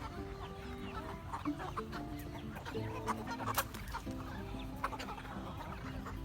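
Chickens clucking, many short calls overlapping one another, over soft background music.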